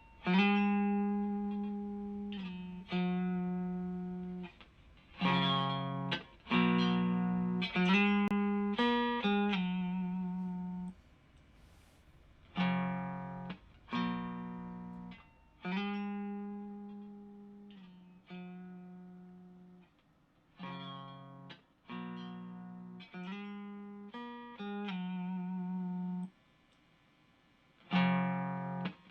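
Electric guitar, a Fender Stratocaster on its neck single-coil pickup, played through a Xotic Effects SL Drive overdrive pedal set to its Super Bass mode into an Orange Micro Dark amp. Chords and short note phrases are struck and left to ring and fade, with brief pauses between them.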